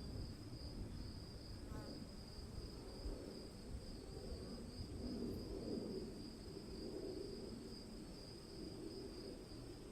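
Crickets trilling steadily in a high, even drone over a low rumble of distant thunder that swells about halfway through.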